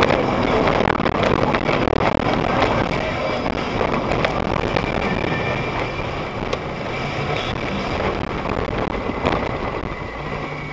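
Loud, steady road and engine noise inside a vehicle's cab as heard by a dashcam, with scattered sharp crackles, easing off slightly near the end.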